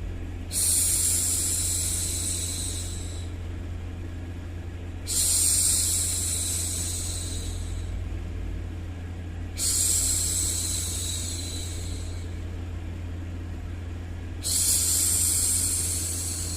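A woman's voice making a long hushing "shhh" four times, each about three seconds long and fading out, roughly every four and a half seconds, over a steady low hum of white noise.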